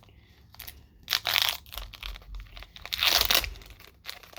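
Foil wrapper of a Pokémon TCG booster pack crinkling and tearing as it is opened, in two loud rustling bursts, about a second in and about three seconds in.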